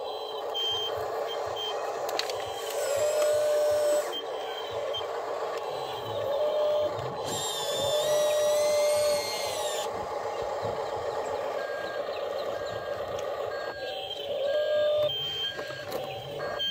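Small electric motors and gears of a toy remote-control excavator whining as the arm digs and swings. The whine slides up and down in pitch and is loudest in two stretches. Short electronic beeps repeat over it like a reversing alarm.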